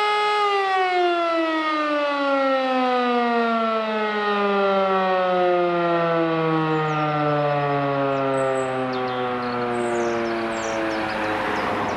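E57 electromechanical siren winding down: its held tone slides steadily lower in pitch as the rotor slows, and right at the end it begins to spin up again. This is the break between the steady tones of the German fire-alarm signal, which sounds one minute of tone interrupted twice.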